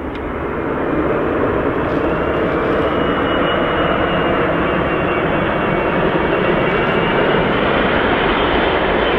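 Four-engined Airbus A380 airliner's jet engines on landing approach: a loud, steady rush that grows louder over the first second, with a faint high whine over it.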